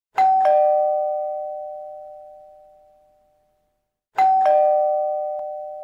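Doorbell-style two-note chime: a higher note then a lower one a quarter second later, ringing out and fading over about three seconds. The ding-dong sounds again about four seconds in.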